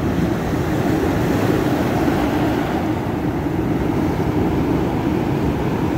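Ocean surf breaking and washing up the beach: a steady rushing noise with a deep rumble, unbroken throughout.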